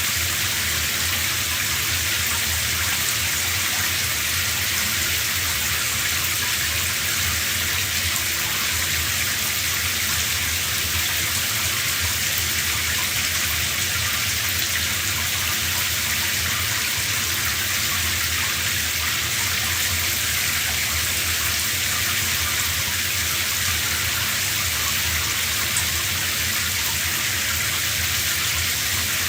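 Shower running: a steady spray of water falling and splashing, unchanging throughout.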